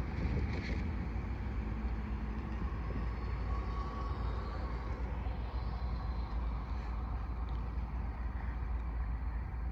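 Steady outdoor background rumble with a faint hiss and no distinct events.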